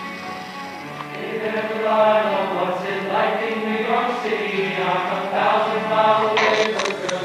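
Men's choir singing in close harmony over two acoustic guitars, the voices swelling in about two seconds in.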